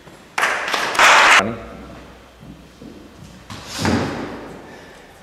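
Thuds of performers' bodies and feet hitting the studio floor in a stage-combat routine, echoing in the bare room: a loud burst around the first second and another near four seconds.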